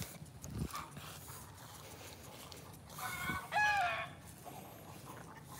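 A chicken's short two-part call about three seconds in, over quiet garden background.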